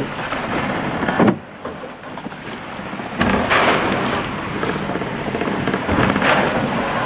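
Seawater rushing and splashing over the hull portlight of a Fountaine Pajot Lavezzi 40 catamaran punching into steep head seas, heard from inside the forward cabin. It comes in surges: one about a second in that cuts off sharply, a sudden louder one just after three seconds, and another near six seconds.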